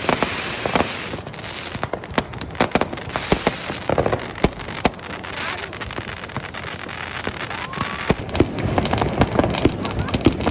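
Fireworks and firecrackers going off: many sharp bangs and cracks in quick, irregular succession over a constant hissing crackle, with a short rising whistle about eight seconds in.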